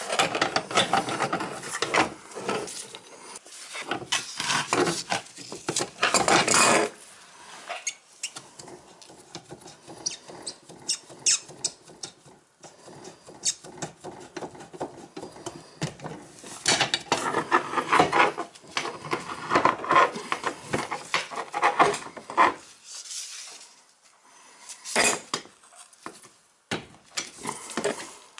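Metal hand tools, pliers and an adjustable wrench, clicking and scraping against the brass compression fitting of a dishwasher's copper water supply line as it is worked loose. Irregular clusters of small clinks and rubbing, busiest in the first several seconds and again about two-thirds of the way through.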